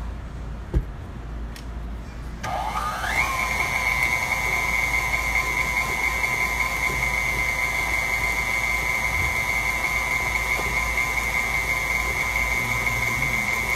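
A single knock about a second in, then a KitchenAid Artisan stand mixer starts up about two and a half seconds in: its motor climbs in pitch for under a second and settles into a steady high whine as the flat beater creams the butter, sugar and egg batter.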